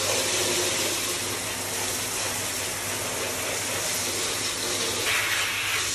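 Shower spray running steadily onto plastic vacuum-cleaner cyclone parts in a bathtub, rinsing off soaked-loose dust and dirt.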